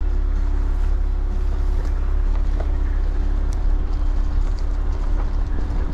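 Jeep Cherokee Trailhawk driving on a rough gravel road, heard from inside the cab: a steady low rumble of tyre and engine noise with a steady hum and scattered small knocks and rattles.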